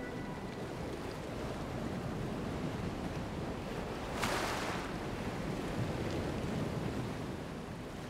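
Sea waves washing on the shore with wind, a louder rush of surf about four seconds in, fading out near the end.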